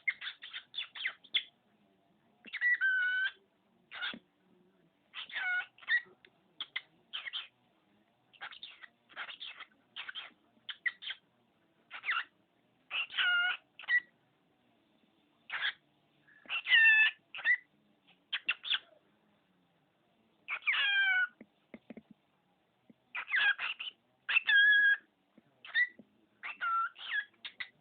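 Pet cockatiel talking: a run of short bursts of mimicked words, one after another, with brief pauses between them.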